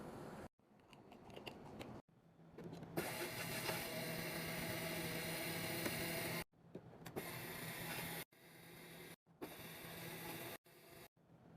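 Drinks and snacks being handled and stocked into a mini fridge: rustling, rattling and clicking of packaging and containers. It comes in several short clips, each cutting off suddenly.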